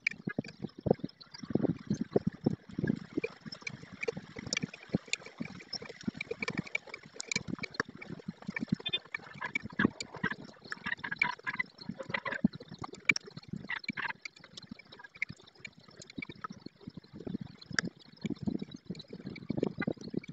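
Outdoor storm ambience from a stork-nest webcam's microphone, sped up sixteen times, so it becomes a dense, rapid crackle of short knocks with low surging rumbles.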